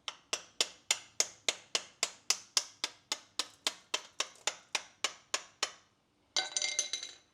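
A hammer tapping a punch or screwdriver to drive out a brake caliper's pad retaining pin: about two dozen quick, even metallic taps, about four a second, followed near the end by a short metallic rattle.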